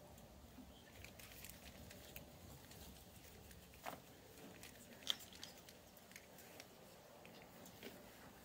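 Near silence with faint scattered rustles and small clicks from black plastic sheeting being handled, and one brief sharp click about five seconds in.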